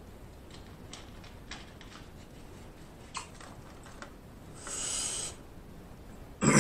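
Close-miked eating sounds: faint wet mouth clicks while chewing, then a brief tearing rustle about four and a half seconds in as the peel is torn off a small orange. A short loud sound comes right at the end.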